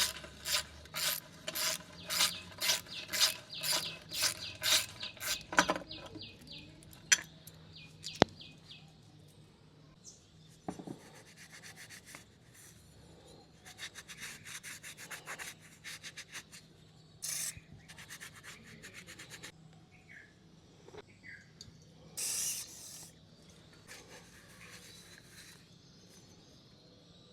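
Hand socket ratchet clicking as bolts are loosened, at about two clicks a second for the first six seconds. Later come scattered sharp metal clicks and shorter runs of faster ratcheting.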